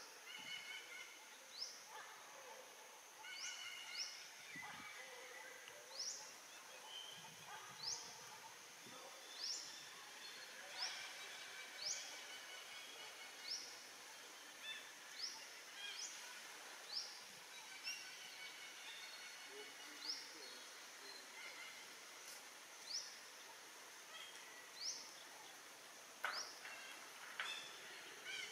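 A bird calling over and over: short rising notes about every one to two seconds, with fainter chirping layered beneath.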